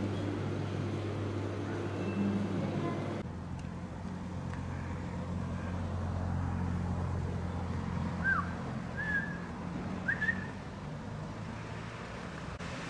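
Background ambience with no speech: a steady low hum, then, after an abrupt change about three seconds in, a steady low outdoor drone like distant traffic, with three short high chirps two-thirds of the way through.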